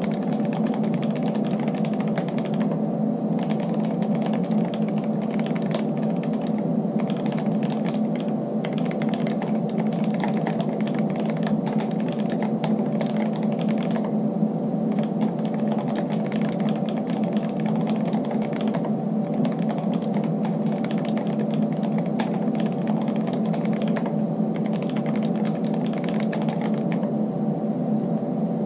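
Typing on a mechanical keyboard with fully lubed Kailh Box Black linear switches and lubed stabilizers in a full aluminium Archon FX case, set on layered mouse mats: a steady stream of keystrokes with a few brief pauses, stopping about a second and a half before the end. A steady low hum runs underneath.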